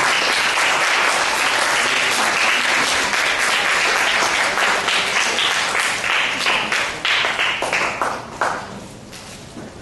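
Audience applauding steadily, the clapping thinning out and dying away near the end.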